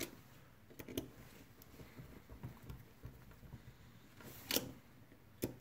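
Faint handling of a Corsair Glaive gaming mouse's plastic shell and side buttons during reassembly, with a few small sharp clicks, the loudest about four and a half seconds in.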